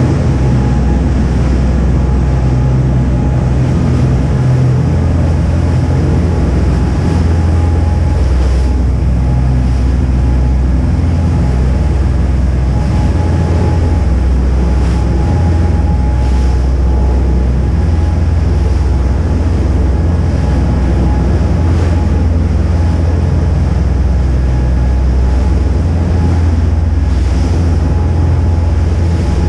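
Sportfishing boat running at speed: a steady low drone from its engines under the rush of the churning wake, with wind buffeting the microphone and a faint steady whine.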